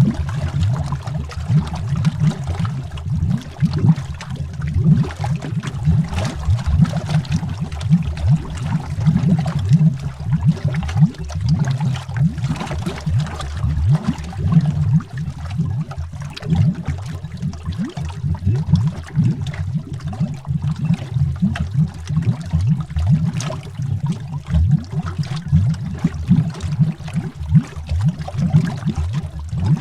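Continuous underwater bubbling: a dense, irregular stream of low bubble pops and gurgles, heard from beneath the water surface.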